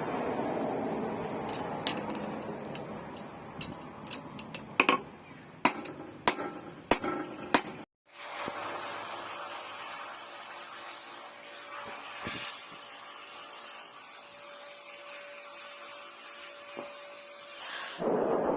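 Hammer striking hot spring steel in irregular blows over a steady rushing noise. About eight seconds in it cuts to a steadier hiss with a thin high whine.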